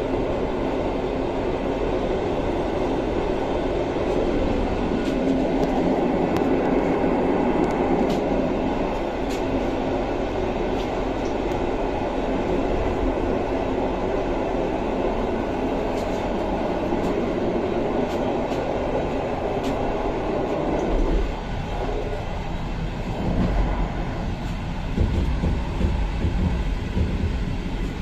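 Passenger train running at speed, heard from inside a carriage by the door: a steady rushing rumble of wheels on rail, with a few faint ticks. About twenty seconds in the sound changes, the rush thinning and a deeper rumble coming up.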